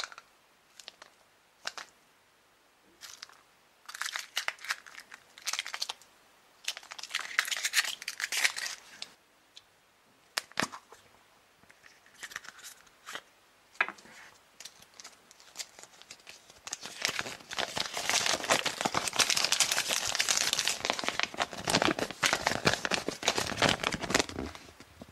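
A Kinder Surprise egg being unpacked by hand: scattered crinkling and rustling of foil and paper, with one sharp click about ten seconds in. From about two-thirds of the way through there is a long, louder stretch of dense paper crinkling as the folded paper insert is opened out.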